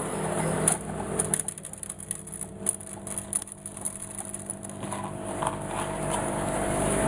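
A machine's motor runs with a steady hum, with light scattered clicks over it.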